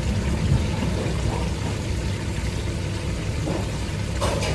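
A steady low mechanical hum, with a single sharp knock or clatter near the end.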